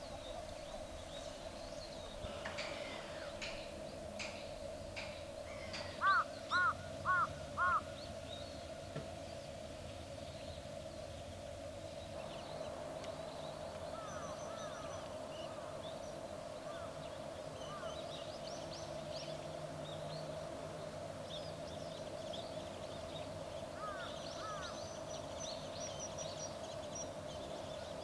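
A crow cawing four times in quick succession, about six seconds in, with smaller birds chirping faintly later on.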